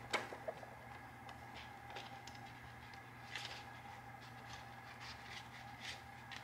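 Faint rustling and crinkling of a clear plastic zip envelope and a paper card being handled and slid together, with a sharp tap just after the start and scattered light ticks after it, over a steady low hum.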